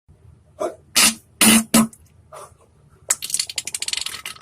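Wet diarrhea-type fart sounds: four or five short blasts in the first two and a half seconds, then a fast crackling sputter over the last second and a half.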